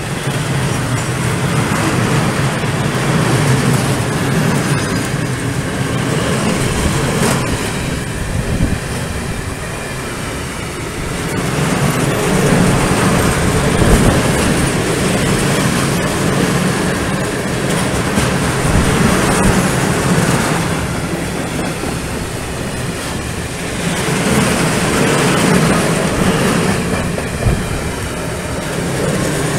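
Long freight train of Eaos open-top coal wagons rolling past: a steady rumble and clatter of wheels on the rails that swells and eases every few seconds, with a few sharp knocks.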